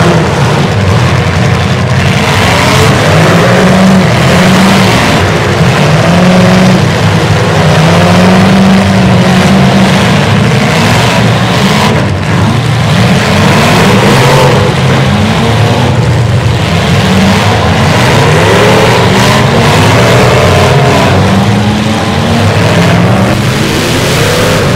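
Several demolition derby pickup truck engines revving hard together, their pitches rising and falling over one another as the trucks accelerate and back off, with a few short impacts in the middle.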